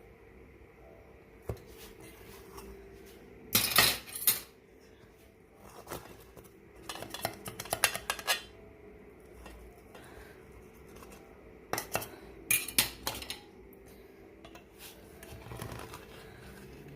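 Metal cutlery clinking and scraping against dishes in three short clusters of sharp clinks, with a few single taps in between.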